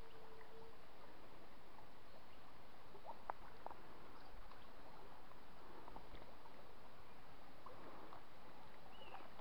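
Faint, steady outdoor background hiss by a calm creek, with a few light clicks around three to four seconds in.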